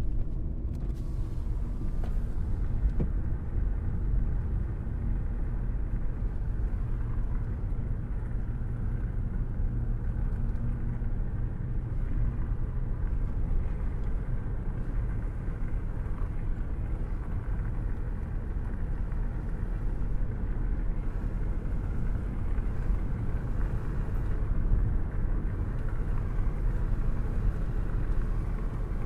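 Rainstorm ambience: a steady, dense low rumble with little high hiss and no separate thunderclaps.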